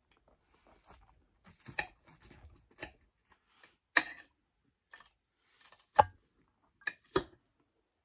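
Knife and fork clicking and scraping on a plate while cutting battered fish, with a few sharp clinks, the loudest about four and six seconds in, and soft chewing in between.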